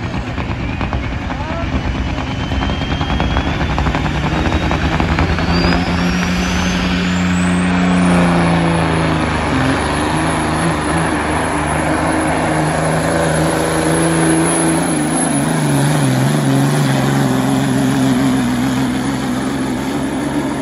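Semi tractor's diesel engine running at full throttle while pulling a weight sled, under heavy load. A high whistle rises in pitch over the first eight seconds or so and then holds steady.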